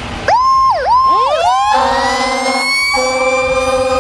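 Fire engine's warning sirens: an electronic siren starts about a third of a second in with a few quick up-and-down sweeps, then a siren winds up into a slow rising wail. Steady low horn blasts sound under it, with a short break near the end.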